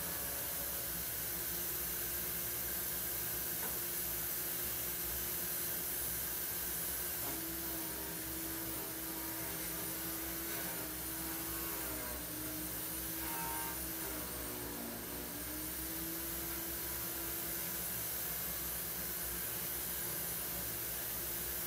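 Steady background hum and hiss of room noise, with a low drone that wavers slightly in pitch partway through.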